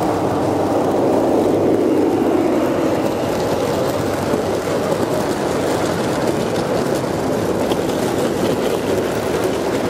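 A Gauge 1 model freight train rolling past close by: a steady rumble of wheels on the rails that is loudest and falls in pitch as the diesel locomotive passes about two seconds in, then continues as the wagons roll by.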